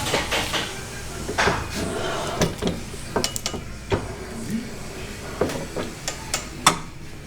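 Irregular clanks and knocks of metal parts being handled, about a dozen, the sharpest near the end, over a low steady hum.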